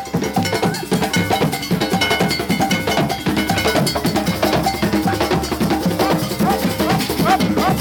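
Percussion-heavy music with a steady, fast beat of dense repeated strikes and short pitched notes.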